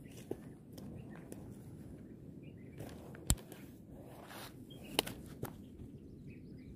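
Rustling on dry grass with soft steps, and two sharp taps about a second and a half apart near the middle.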